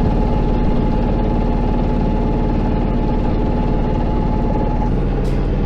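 A sailboat's engine running steadily while motoring out under way; its note shifts slightly about five seconds in.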